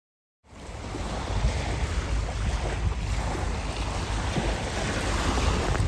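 Wind buffeting the microphone over a steady wash of water on the bay, cutting in about half a second in after silence.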